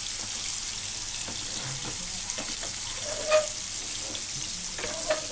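Fish pieces shallow-frying in a few spoons of hot oil in a pan, a steady sizzle with scattered small pops. A short ringing clink about three seconds in, and a smaller one near the end.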